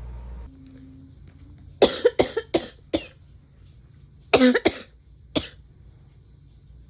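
A person coughing in three bouts while sick: four quick coughs, then a pair, then a single cough.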